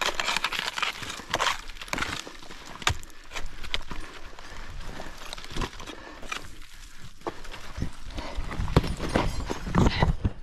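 Irregular knocks and scrapes of winter mixed climbing: ice axes and crampons striking and scratching snow-covered rock, some sharp, some dull, in an uneven rhythm.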